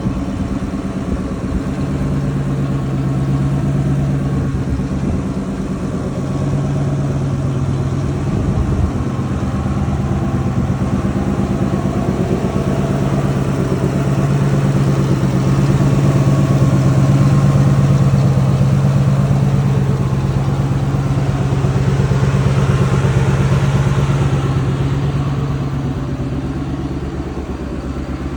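Vermeer BC1500 wood chipper's engine running steadily at a constant speed. It swells somewhat louder midway and eases again near the end.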